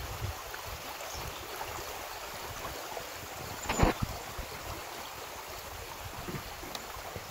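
Steady rush of flowing stream water, with one sharp knock a little under four seconds in.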